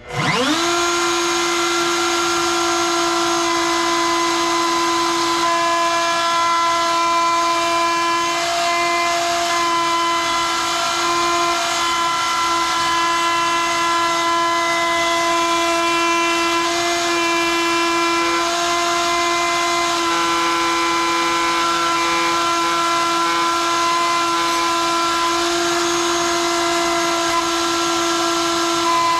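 Electric wood router spinning up in the first half second and then running steadily at full speed with a high, even whine, trimming a Lexan acrylic guitar-body template.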